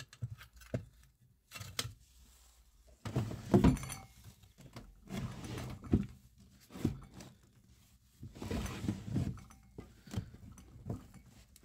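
Irregular footsteps, scuffs and knocks with a few light clinks, of someone picking their way through a cluttered room full of debris.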